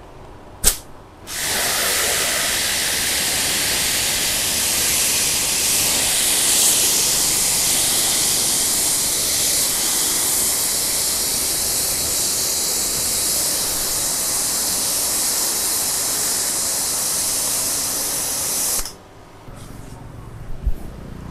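High-pressure washer jet spraying through a 40-degree fan nozzle onto wet pavement: a loud, steady hiss that starts just after a sharp click about a second in and stops abruptly near the end.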